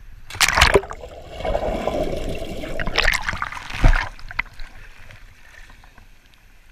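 Splashing water as a scuba diver enters the sea and surfaces right beside the camera: a sharp splash about half a second in, churning, bubbling water, then another burst of splashing around three to four seconds in, settling to light lapping.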